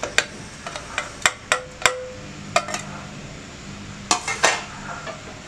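Stainless-steel bowl and spoon clinking against a steel mixer-grinder jar as cut tomatoes are scraped in. A run of sharp metal taps, one with a brief ring, then a quick cluster of clinks about four seconds in.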